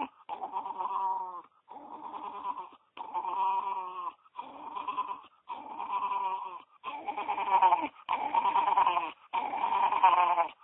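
A dog whining in a run of about eight drawn-out, wavering cries, each about a second long with short breaks between them.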